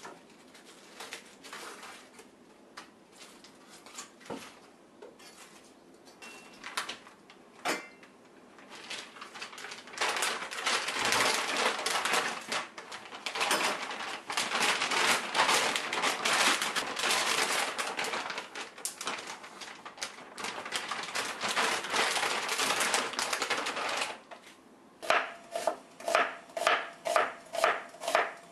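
Cabbage leaves being peeled off the head with scattered crisp snaps, then a large plastic bag crinkling loudly for over ten seconds as the cabbage is packed into it. In the last few seconds a kitchen knife slices onion on a wooden cutting board in a steady rhythm of about two to three strokes a second.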